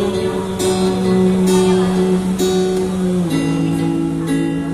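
Instrumental music: acoustic guitar strummed over held chords, with one chord change about three seconds in.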